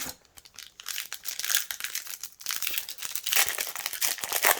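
Shiny foil trading-card booster pack wrapper being crinkled and torn open by hand: dense crackling in two stretches, with a short lull about halfway through.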